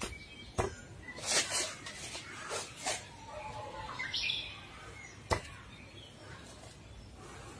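A man's forceful hissing exhalations, several short breaths, as he gears up to chop a brick by hand, with a brief bird chirp near the middle and one sharp click about five seconds in.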